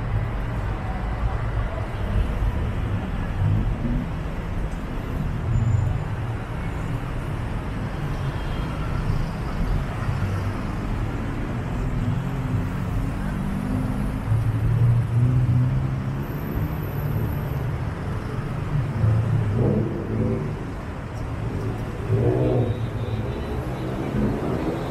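Road traffic on a busy city street: cars and other vehicles passing close by with a steady rumble of engines and tyres.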